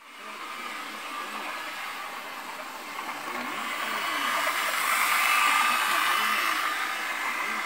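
Hornby OO gauge model train, a Class 37 diesel locomotive pulling freight wagons, running on its track with a steady motor whine and wheel rumble. It grows louder as it passes close by about five seconds in, then fades.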